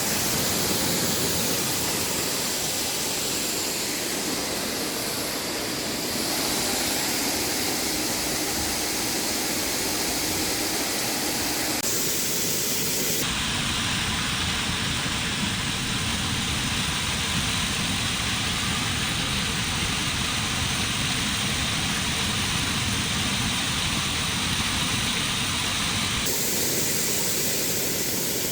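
Steady rushing noise with no clear pitch. It changes character abruptly about thirteen seconds in and changes back near the end.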